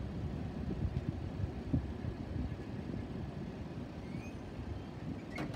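Low, steady rumble of the receding freight train mixed with wind noise on the microphone. The crossing gates rise without a bell, and a single sharp click comes near the end.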